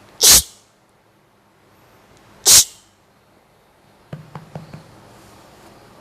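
Two short, loud, forceful bursts of breath from a person, about two seconds apart. A few faint small clicks follow near the end.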